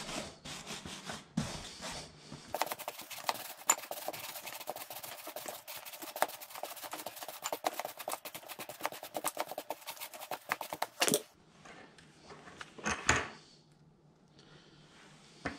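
A stiff bristle brush scrubbing the rubber lugs of an ATV tire: a fast, scratchy rasp lasting about eight seconds, then stopping. A sharp knock follows about two seconds later, and a lighter click near the end.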